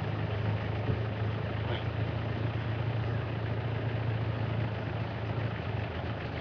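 Game-drive vehicle's engine running as it drives along a dirt road: a steady low drone with a haze of road and wind noise over it.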